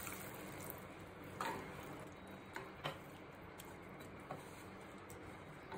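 Faint steady hiss of egg curry gravy simmering in a stainless steel pan, with a few soft ticks scattered through it.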